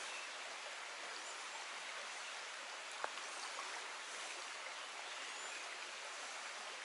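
Shallow stream running over rocks, a steady, even wash of water, with one sharp click about three seconds in.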